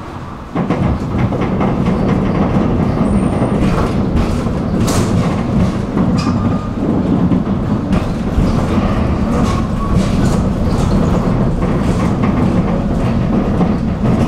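Tram running along the rails, heard from on board: a steady low rumble with scattered clicks and knocks from the wheels and track. The sound gets suddenly louder about half a second in.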